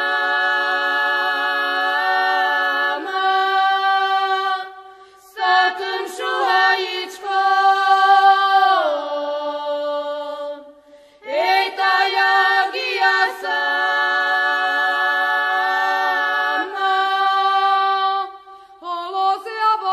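Unaccompanied voices singing in harmony, holding long notes, with a falling glide about nine seconds in and short breaks about five and eleven seconds in.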